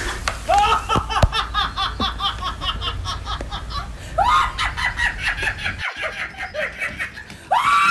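A woman laughing hard: fast, rhythmic runs of ha-ha-ha pulses, broken by a brief gap a little after the middle and starting up again loudly near the end.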